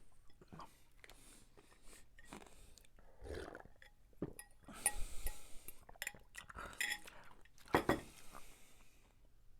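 Close-up eating sounds: chewing, with a few sharp clinks of cutlery against dishes, the loudest about halfway through and near the end.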